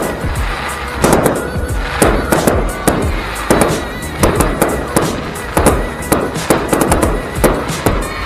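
Aerial fireworks bursting one after another, about one or two loud bangs a second, each trailed by crackling, with music playing underneath.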